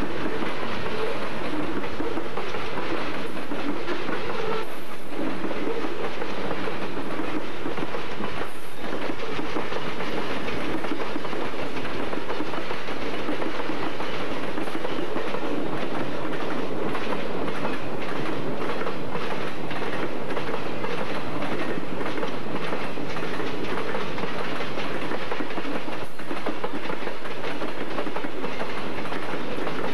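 Freight cars of a passing train rolling by close up: a steady rumble of steel wheels on the rails, with repeated clicks and clatter as the wheels pass.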